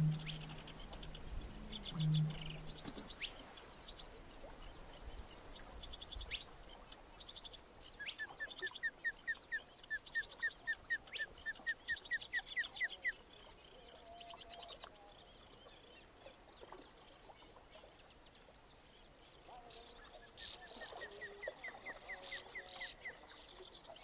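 Reed-bed and wetland birds singing in a recreated soundscape: many small high chirps over a thin, steady high trill, with two deep booms at the start. The loudest sound is a run of about twenty quick rising notes, about four a second, which comes again more briefly near the end.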